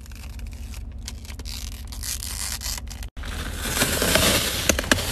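Clear protective plastic film and wrap being peeled and crumpled off a car's interior trim and seat. It makes a dense crackling and rustling that grows louder in the second half, with a momentary break about three seconds in.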